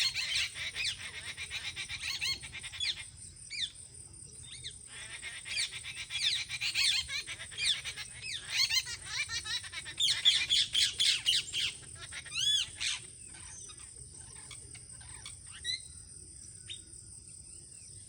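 Several birds chirping and chattering in bursts of quick, high calls, with a few clear up-and-down whistled notes about twelve seconds in, then thinning out to scattered chirps. A steady high insect drone runs underneath.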